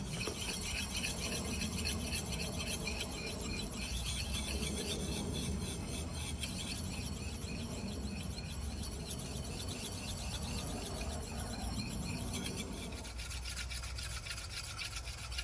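A hand-held sharpening stone rubbed in quick, repeated strokes along the steel bit of a Rinaldi Milano carpenter's axe: a steady rasping scrape as an edge is put on it.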